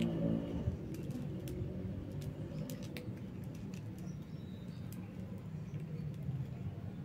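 Two kittens eating dry kibble from a plate: scattered, irregular small crunches and clicks as they chew, over a low steady background rumble.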